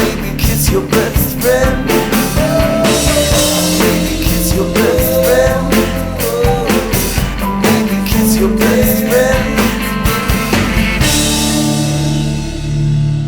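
Rock band playing an outro: a drum kit and guitars, with a melody line that slides up and down in pitch over the top. About eleven seconds in, the drums stop and held guitar and bass notes ring on.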